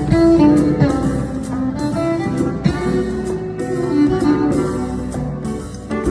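Cello playing a jazz melody with a band, over a steady beat of about two cymbal strokes a second.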